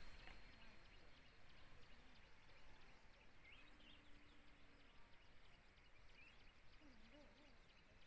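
Near silence: faint outdoor background with a few faint, short high chirps scattered through it and faint distant voices wavering near the end.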